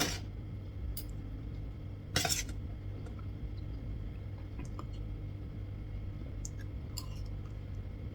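Cutlery clicking against a dish during eating: a few short sharp clicks, the loudest a little after two seconds in, over a steady low hum.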